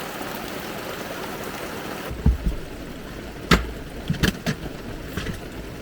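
Heavy rain falling, a steady hiss. About two seconds in the hiss drops and a series of knocks and thumps follows.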